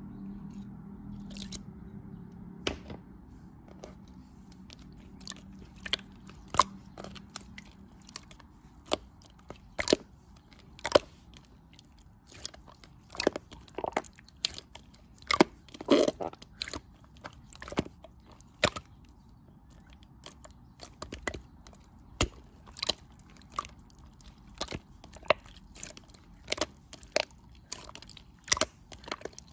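A close-up series of sharp, crisp clicks and crunches at irregular spacing, roughly one or two a second, over a faint low hum that fades out about eight seconds in.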